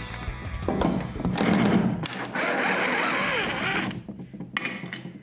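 Cordless drill running in bursts as it backs screws out of a wooden canoe deck, the motor whirring under load, with a sharp click about four and a half seconds in.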